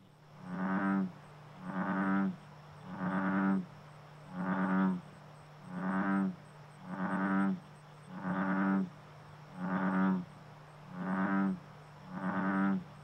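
American bullfrog calling: a steady series of deep, resonant croaks, about one every second and a quarter, each swelling briefly and then stopping.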